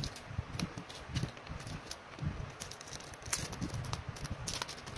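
Photocards in clear plastic sleeves being handled: irregular crinkling of the plastic with light clicks and taps as the cards are picked up and set down on a desk.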